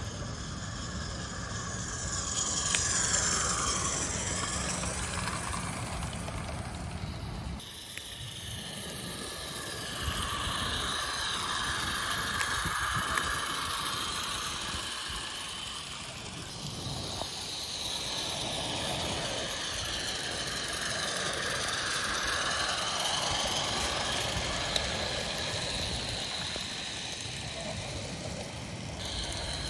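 Live-steam garden-scale train running on its raised track: the metal wheels roll and rattle over the rails. The sound swells and fades several times as the train passes.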